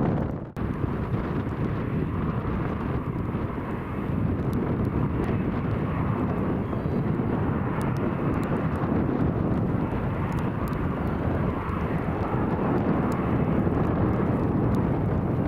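Boeing 737 jet engines running steadily.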